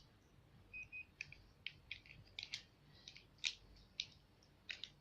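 Faint, scattered small clicks and ticks, about a dozen, with a brief high note twice about a second in.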